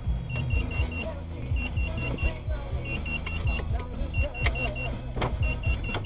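Car running in slow traffic with a low engine and road rumble. A high electronic beep repeats in quick runs of four, about every second and a bit.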